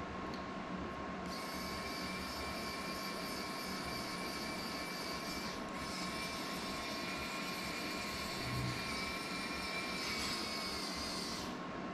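A small motor's steady high-pitched whine starts about a second in, breaks off briefly near the middle, then runs on and stops shortly before the end, over a faint constant hum.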